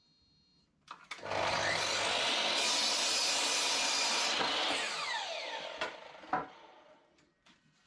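An electric power saw starts about a second in and cuts wood for about four seconds. Its motor then winds down with a falling whine, followed by a couple of knocks.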